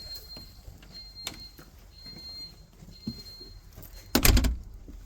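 Pyronix Enforcer alarm beeping its exit-delay countdown, a high beep about once a second, which means the system is counting down to arm. About four seconds in, the beeps stop and a door shuts with a loud thud.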